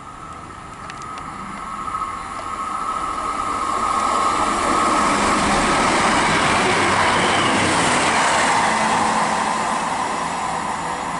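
Great Western Railway Class 158 diesel multiple unit passing through the station without stopping. Its engine and wheel noise build over the first few seconds, hold steady at their loudest, then ease off a little near the end.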